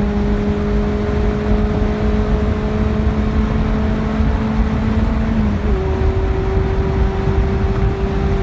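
Tofaş Doğan SLX engine running hard at high speed, a steady drone under heavy road and wind rumble. About five and a half seconds in, the drone's pitch steps slightly lower.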